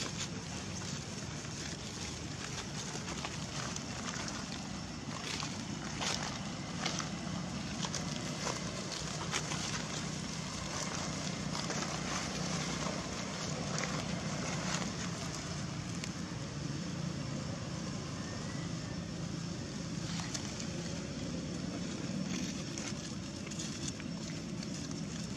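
Steady outdoor background noise with a low, even hum like a distant engine, and scattered soft crackles of dry leaves as the macaques shift about on the leaf litter.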